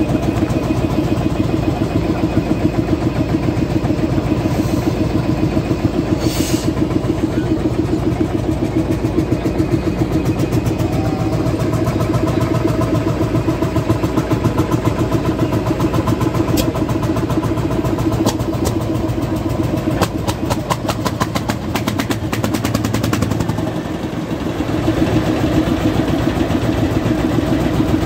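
Vintage Landini hot-bulb (testa calda) tractor engine running with a steady, rapid pulsing beat.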